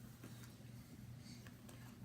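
Near silence: room tone with a faint steady low hum and a few faint small ticks.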